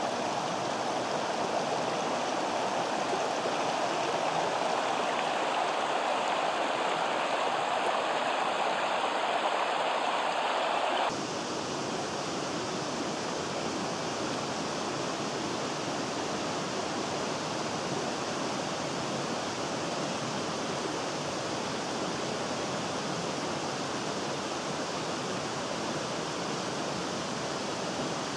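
Rocky mountain stream running over stones: a steady, even rush of water. About eleven seconds in it changes abruptly to a slightly quieter, duller rush from another stretch of the stream.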